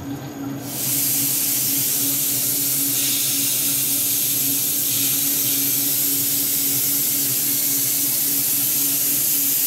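Compressed air blowing from a brass nozzle on a flexible hose at the knurling wheels to clear chips: a loud, steady hiss that starts about a second in. Under it is the steady low hum of the lathe turning at low speed.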